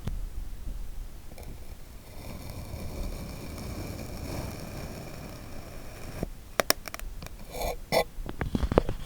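Kinetic sand being scraped and cut with a tool: a steady rough scraping for several seconds, then a few sharp clicks and crunches in the last three seconds.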